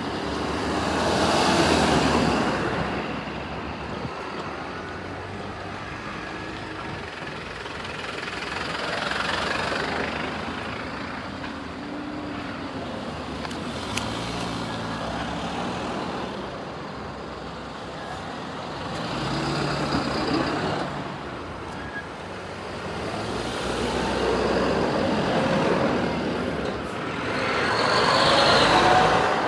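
Road traffic: cars and trucks passing one after another, each swelling and fading over a few seconds, with the loudest passes about two seconds in and near the end.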